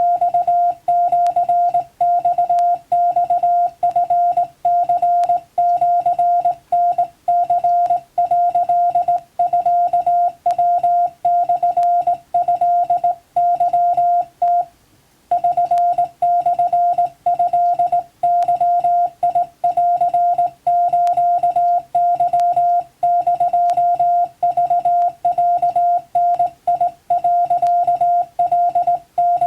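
Morse code (CW) tone, a steady single pitch keyed on and off in quick dots and dashes: Japanese wabun telegram-style code for receiving practice. There is one longer pause about halfway through.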